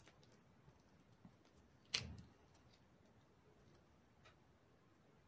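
Faint clicks and small cracks of eggshell being picked off a hard-boiled egg by hand, with one sharper crack about two seconds in.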